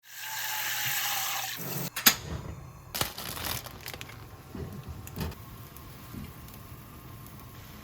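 Water running with a loud hiss for about a second and a half, then several sharp clicks and knocks.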